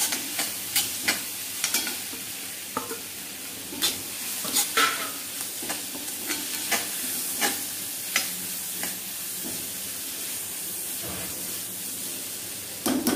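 A metal spatula scrapes and clacks against a wok, stirring egg and vegetables that are frying in sauce, over a steady sizzle. The clacks come quickly for the first few seconds, then thin out.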